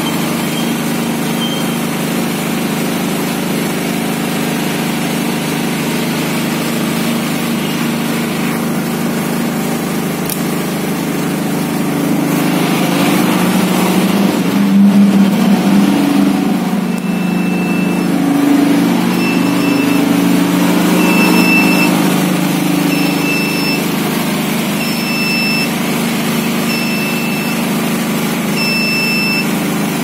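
A generator engine running steadily, its note wavering briefly about halfway through. From just past halfway, the transfer switch's alarm buzzer sounds a high-pitched beep about once every two seconds during the alarm test.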